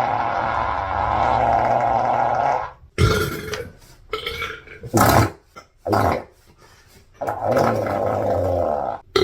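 A girl burping: one long drawn-out burp lasting until nearly three seconds in, a few short sharp sounds in the middle, then another long burp near the end.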